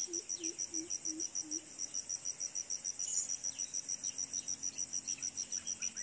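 Insect chirring high and steady in an even pulse of about five to six beats a second, with faint short high chirps scattered through and a few soft low notes in the first second and a half.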